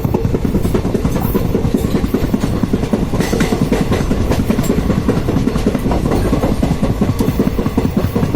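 Loud passage of a passenger express train's coaches over a railway bridge: a steady low rumble with a rapid, continuous clatter of wheels on the bridge track.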